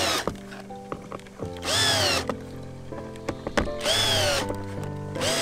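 Cordless electric screwdriver tightening panel screws, running in short bursts about every two seconds, each rising then falling in pitch.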